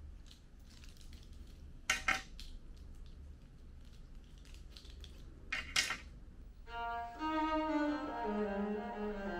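Low room hum with a few sharp knocks, one about two seconds in and a pair near six seconds; then, near the end, a cello starts a slow bowed melody, stepping down note by note to a held low note.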